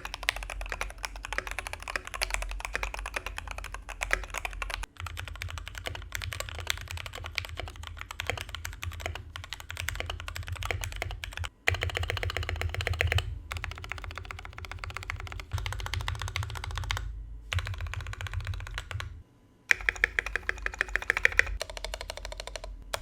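Fast typing on two mechanical keyboards in a sound test: a stock, pre-lubed Keychron V1 and an RK61 modded with upgraded lubed switches, fixed stabilizers and a foam mod. It comes as a run of typing clips joined by several abrupt cuts.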